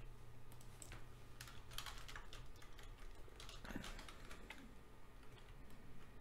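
Faint typing on a computer keyboard: irregular keystrokes, a few quick ones in a row then short pauses, over a steady low hum.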